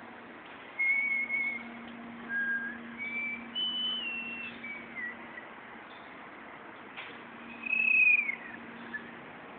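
A person whistling a short tune: several held notes with slides between them, the last one falling away. Under it runs a steady low hum.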